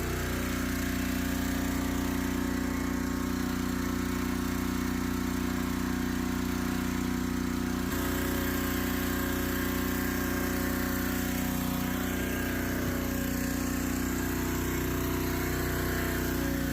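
Small engine of a pressure washer converted into a sewer jetter, running steadily at constant speed while it jets the drain line.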